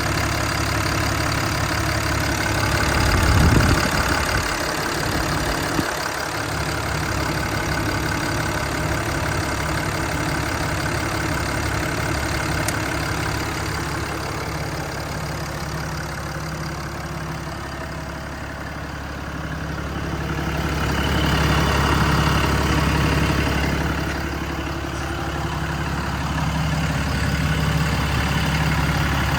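Ram 5500's 6.7-litre Cummins diesel engine idling steadily, with a brief louder spell a few seconds in and a gradual swell in level about two-thirds of the way through.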